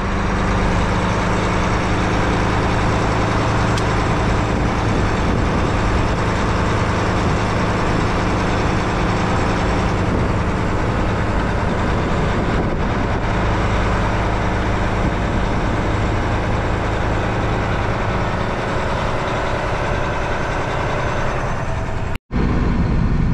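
Truck's diesel engine running steadily with a low, even drone, heard from inside the cab as it rolls slowly through a truck lot. About 22 seconds in it cuts out abruptly and a different steady cab noise follows.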